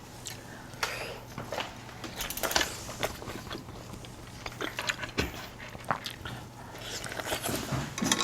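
Close-miked eating: a person chewing and slurping hot pot food, with scattered short wet smacks and clicks. A steady low hum sits underneath.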